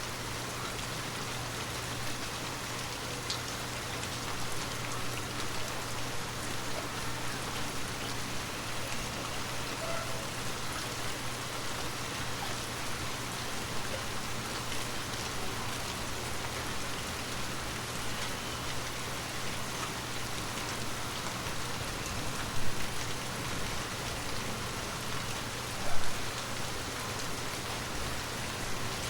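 Water drops tapping on glass in a steady, dense patter like light rain, over a faint low hum. Two louder drops stand out, one about three-quarters of the way through and one near the end.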